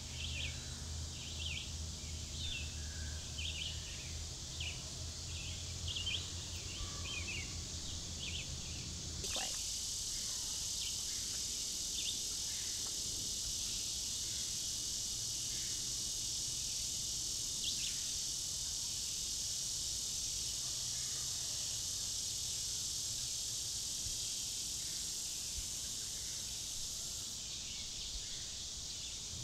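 Summer woodland ambience. A songbird repeats short high chirps about twice a second; then, after an abrupt change about nine seconds in, a steady high insect drone takes over with scattered bird calls.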